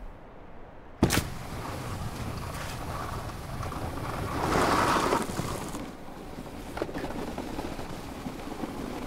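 Skis on snow: a sharp thump of a jump landing about a second in, then the steady hiss and scrape of skis sliding over snow, which swells louder for about a second near the middle.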